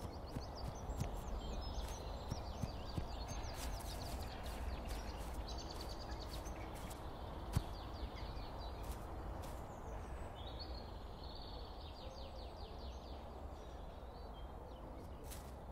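Outdoor ambience: a steady low rumble like wind, with a small songbird singing bouts of rapid, high, falling chirps, three times. A single sharp tap sounds about seven and a half seconds in.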